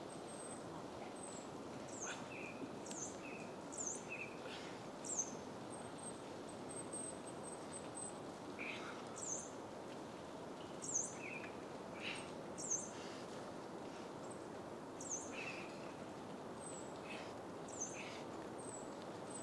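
Small birds chirping over a steady low outdoor hiss: short, high, thin chirps and brief notes come every second or so, with a few louder ones scattered through.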